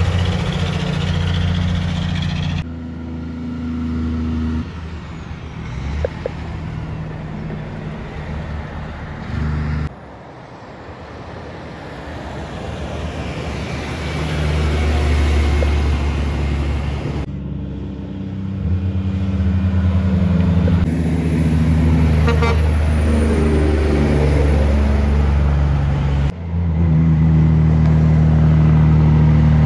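Heavy diesel semi-trailer trucks, with cars among them, passing close by one after another, their engines running with a loud low drone over tyre noise. The sound jumps abruptly several times.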